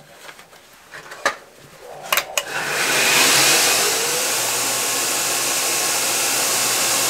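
A belt grinder switched on: a few light clicks, then about two and a half seconds in the motor and 120-grit sanding belt spin up to a steady rushing run. The belt runs free, with no steel on it yet.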